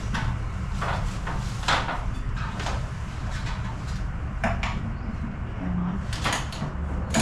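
Irregular knocks and clunks of hand work, about a dozen scattered over several seconds, over a steady low rumble.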